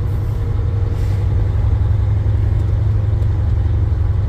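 Truck engine running steadily under load, a low even drone heard from inside the cab.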